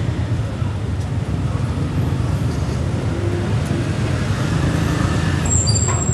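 Steady low rumble of street traffic, with motor scooters and cars running along the road.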